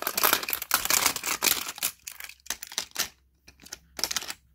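Plastic toy cars and playset pieces being handled and moved, with rubbing and handling noise close to the microphone: a dense crackle of clicks and rustles for about two seconds, then scattered short clicks with brief quiet gaps.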